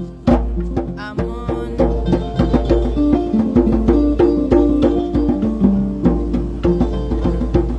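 Live ngoni, a West African plucked lute, playing a busy melody of quick plucked notes, with percussion strikes keeping time.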